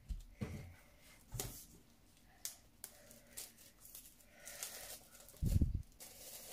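Clear plastic shrink wrap being torn and peeled off a hardcover album, in short crinkling rips. A louder low thump comes about five and a half seconds in.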